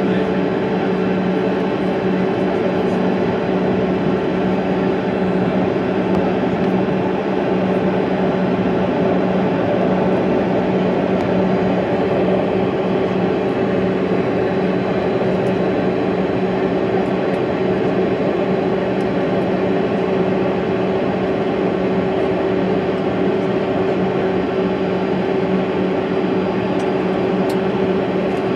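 Steady cabin drone of a Bombardier CRJ-200 regional jet taxiing, its twin rear-mounted GE CF34 turbofans at idle, with an even low hum throughout.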